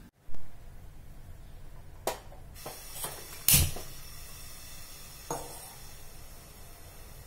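About five separate knocks and clicks of objects being handled, the loudest just after the start and about three and a half seconds in, over a low steady hum.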